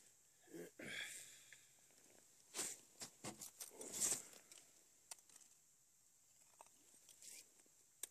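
Faint handling noises from ice fishing: a padded winter suit rustling and the small rod and reel clicking as they are worked, in several short bursts, loudest about four seconds in.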